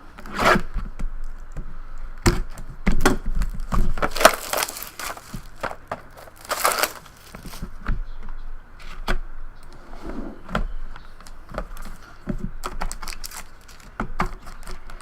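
Trading-card box packaging being torn open and crinkled, with two longer tearing rustles about four and six and a half seconds in, amid scattered clicks and knocks of handling.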